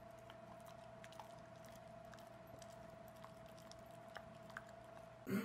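Quiet room tone: a faint steady hum with scattered soft clicks, and a sudden louder noise breaking in right at the end.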